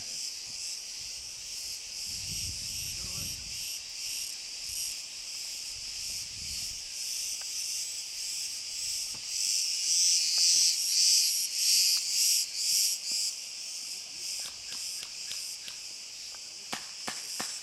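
Cicadas singing in a dense, high-pitched, pulsing chorus that swells loudest about two-thirds of the way through. A few sharp clicks sound near the end.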